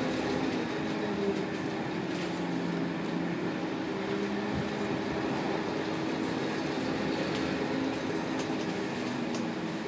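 Inside the cabin of a Scania K280UB city bus under way: its 9.3-litre five-cylinder Scania DC9 diesel and ZF Ecomat six-speed automatic gearbox running. A steady hum is held throughout while other engine tones shift in pitch.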